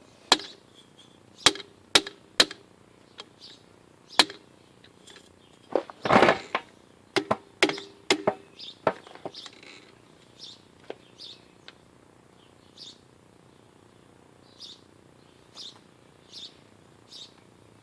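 Sharp metallic clicks and knocks of hand tools on the trailer's shock-absorber mounting hardware as the shocks are unbolted, with a louder rattling knock about six seconds in. In the second half, a run of short high chirps.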